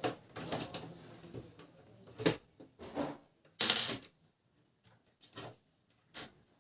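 Plastic parts of an opened Canon LBP 2900 laser printer being handled during disassembly: a string of short clicks and knocks with brief pauses between, the loudest a little over a second apart near the middle, then a few fainter clicks.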